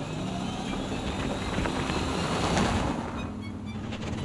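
Snow-clearing vehicle driving past: a steady engine hum under a broad rushing noise that swells in the middle and eases off near the end.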